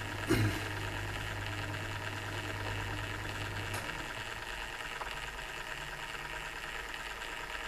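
Steady low motor hum from a rotating light-up display base, with a single knock just after the start. The deepest part of the hum drops away about four seconds in, leaving a fainter hum and hiss.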